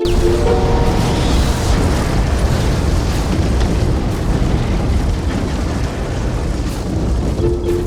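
A loud, steady rushing rumble of noise that sets in suddenly and lasts about seven and a half seconds, with held musical notes showing through at the start and near the end.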